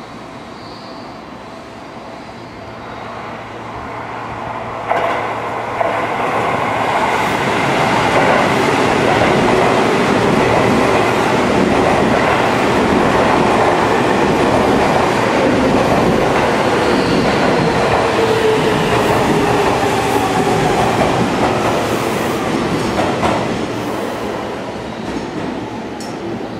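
An electric commuter train passing close by, its wheels clattering and clicking over the rail joints, with a whine that falls in pitch as it goes by. The sound builds up, holds loud for most of the pass, with two sharp knocks near the start, then fades.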